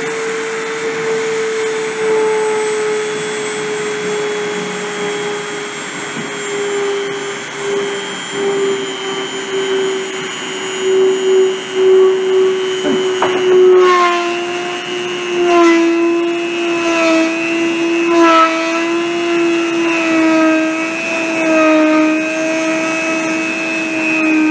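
Dremel rotary tool set to 30,000 RPM spinning a 1.6 mm copper wire pressed against an aluminum oxide ceramic substrate in friction surfacing. Its steady whine slowly sinks in pitch and grows rougher, with extra ringing tones, from about fourteen seconds in.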